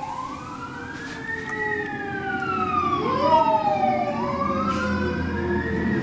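Several sirens wailing at once, their pitch sliding slowly up and down, growing louder as they approach, with a low vehicle rumble building near the end.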